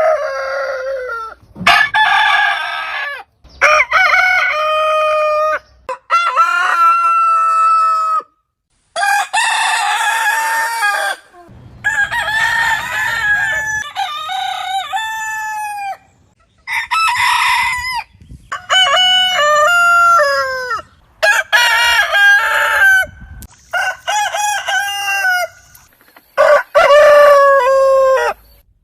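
Roosters crowing one after another, about a dozen crows in quick succession, each cut off abruptly and differing in pitch from the last, as from several different roosters.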